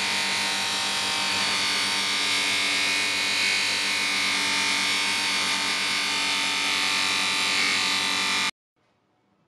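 Power tool with a spinning abrasive disc running at speed while a chrome vice handle bar is held against it: a steady high motor whine with a grinding hiss. It cuts off suddenly near the end.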